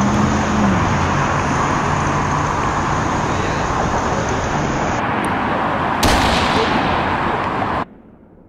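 Intro sound effect: a loud, steady rushing roar with a low hum at the start and a sudden bang about six seconds in, cutting off abruptly about a second before the end.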